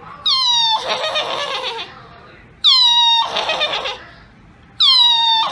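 A woman imitating a horse's whinny with her voice, three times, about two seconds apart. Each call opens with a high cry that slides down in pitch, then breaks into a rough, quavering trill.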